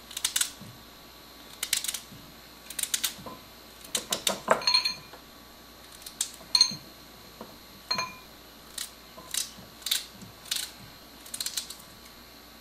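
Irregular light clicks and clinks as hand-cut wedges of raw red potato drop into a glass bowl and the paring knife knocks against them, a few of the hits ringing briefly off the glass.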